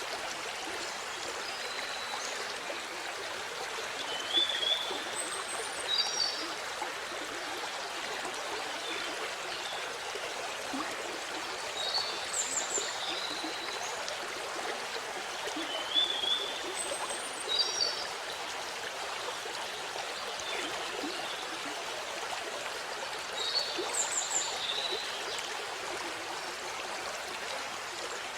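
Waterfall: steady rushing water. Short high-pitched chirps come in small clusters every several seconds and are briefly louder than the water.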